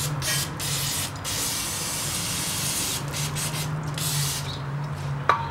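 Aerosol can of brake cleaner spraying onto a bare wheel hub in several bursts, one long and some short, stopping about four and a half seconds in. It is cleaning rust and debris off the hub face before a new brake rotor goes on.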